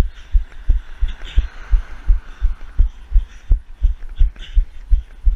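Steady low thumps, about three a second, with a faint hiss over them: footfalls jolting a camera carried on the move.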